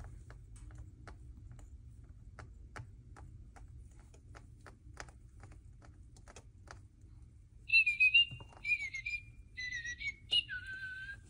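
Moluccan cockatoo making about five short, squeaky whistled chirps in the last few seconds, most dipping in pitch, after faint irregular clicks of beak on toy or shavings.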